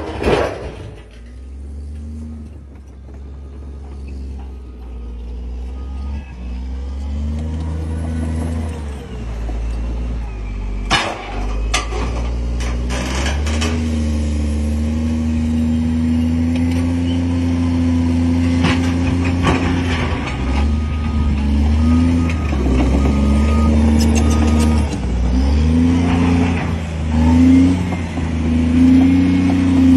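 Large crawler bulldozer's diesel engine working under load while pushing a huge boulder, its pitch climbing and dropping as the load changes and growing louder as it goes. A few sharp knocks come about a third of the way in.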